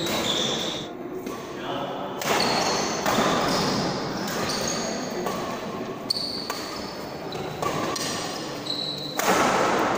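Badminton rally on an indoor court: rackets striking the shuttlecock, with several sharp hits. Between the hits, short high squeaks of shoes on the court, all echoing in a large hall.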